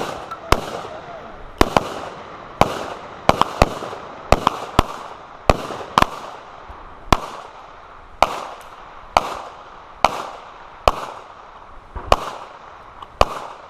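Gunfire from several shooters on a firing line with carbines and pistols: about twenty sharp shots at irregular intervals, some in quick pairs, each ringing out briefly.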